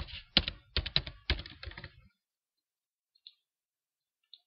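Typing on a computer keyboard: a quick, irregular run of keystrokes that stops about two seconds in, followed by two faint clicks.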